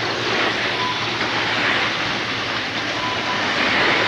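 Fuel-engined RC race cars running laps, their small engines buzzing in a steady high haze that swells each time a car passes close by.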